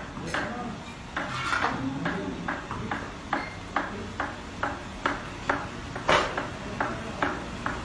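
Metal utensil clinking against metal cookware in a steady rhythm, about two to three strikes a second, with one louder clank about six seconds in.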